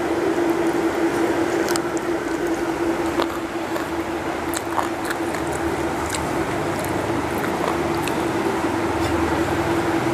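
Close-miked eating: wet squishing and chewing as rice and chicken curry are eaten by hand, with scattered small sharp clicks. A steady hum runs underneath.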